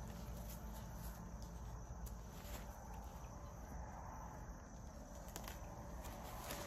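Faint rustling of mesh camouflage blind fabric as it is lifted and shaken out, with insects chirping steadily in the background.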